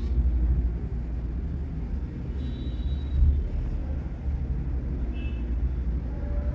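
JACK industrial lockstitch sewing machine running, stitching fabric: a steady low hum that swells louder near the start and again about three seconds in.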